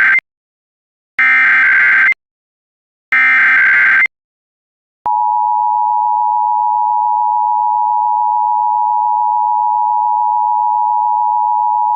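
Emergency Alert System SAME header: the end of one digital data burst and two more bursts of about a second each, a short gap between them, then from about five seconds in the steady EAS two-tone attention signal, announcing a statewide Required Weekly Test.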